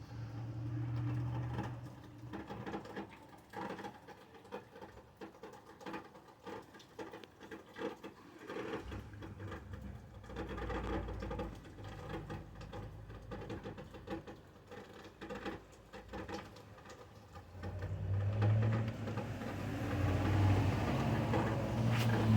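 Rain falling off a roof, dripping and pattering in an irregular stream of drops. A low hum comes in briefly near the start and again, louder, in the last few seconds.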